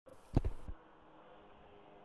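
A sharp knock and a few softer clicks in the first second, from handling a brass lock cylinder close to the microphone, then faint hiss.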